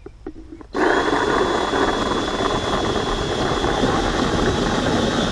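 Cordless drill with a 2-inch hole saw starting up about a second in and cutting steadily through a plastic hydroponic tower stacker, with a steady high whine from the motor. A few faint clicks come before it starts.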